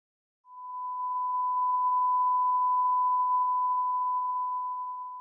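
Steady pure beep tone, the test tone that goes with television colour bars, used here as a production logo's sound. It fades in about half a second in and fades out at the end.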